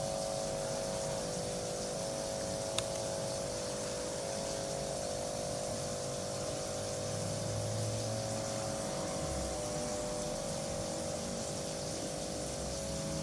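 Laptop giving off a steady electronic hum: several close tones that shift in pitch in small steps over a faint hiss. A single click about three seconds in.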